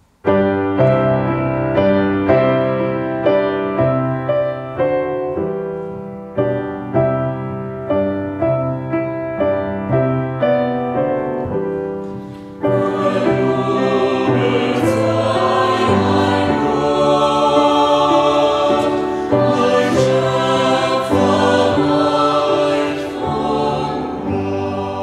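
Grand piano playing a slow introduction alone, its struck notes dying away one after another. About halfway through, a mixed choir comes in singing with the piano, and the music fades near the end.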